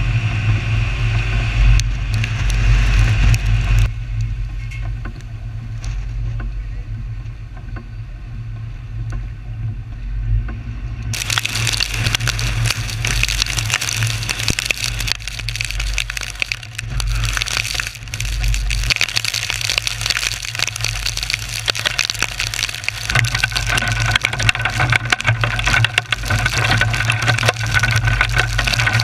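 Storm-chase vehicle driving through heavy rain on a wet road: a steady low road and engine rumble under a hiss of rain and tyre spray, peppered with sharp hits. The hiss eases after about four seconds, then comes back suddenly and loudly about eleven seconds in.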